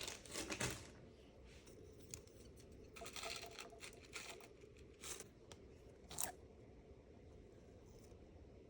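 Thick slime being pressed and pulled by hand, giving a few short, crackly sticky bursts with quiet between them.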